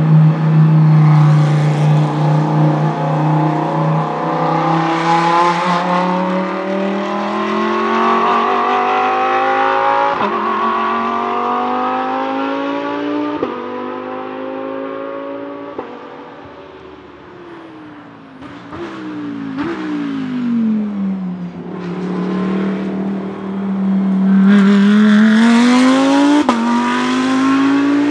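Audi R8 LMS GT3 Evo II race car's naturally aspirated 5.2-litre V10 accelerating hard through the gears, with quick upshifts as it pulls away and fades into the distance. Then comes a run of downshifts with throttle blips under braking, and the V10 pulls hard again, with another upshift near the end.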